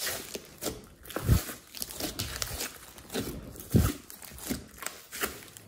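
Thick glossy slime mixed with clay being kneaded and pressed by hand: irregular squishing and crackling, with two louder deep pops about a second and a half in and near four seconds.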